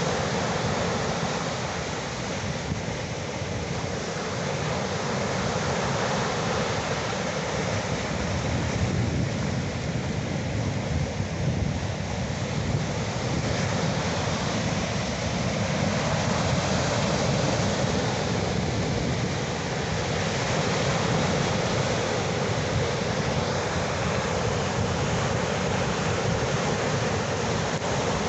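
Ocean surf: waves washing in continuously, the rush of water rising and easing gently every few seconds.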